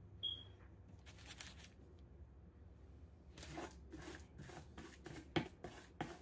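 Plastic donut cutter pressed down through soft dough onto floured parchment paper: a brief high squeak at the start, a rustle, then a run of short rustling, scraping strokes, two or three a second, with one sharp knock among them.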